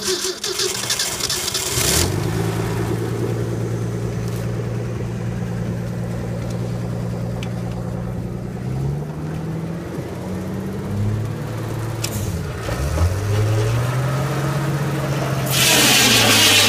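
A 1960 Ford truck gasoline engine, just fired up, running the hydraulic pump of a homemade firewood processor. After about two seconds it settles to a steady pitch that dips and recovers a few times in the middle as the hydraulic controls are worked. Near the end a loud hissing saw noise joins as the big saw blade starts on a log.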